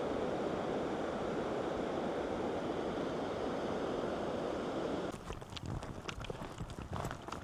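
Steady rushing of flowing water from a rain-swollen stream, which cuts off abruptly about five seconds in. Footsteps follow.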